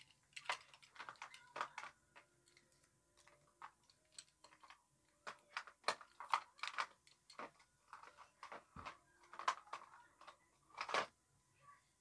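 Irregular light clicks and taps of small plastic pieces being handled.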